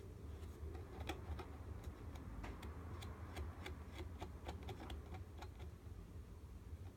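Light, irregular ticks and rustles of a thin paperboard box as a cat noses and pushes its head into it, thickest in the middle of the stretch.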